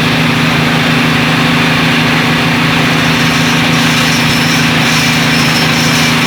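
Engine of a well-drilling rig running loud and steady at a constant speed.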